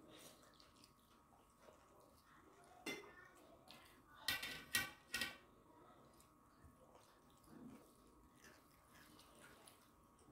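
Glass bowls and steel plates clinking: a single click about three seconds in, then three ringing clinks in quick succession about a second later, as curry is poured from the bowls onto the plates. Faint sounds of eating and mixing rice by hand are underneath.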